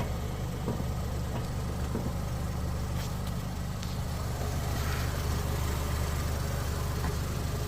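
Mahindra XUV700's engine running steadily at idle, with a few faint clicks scattered through.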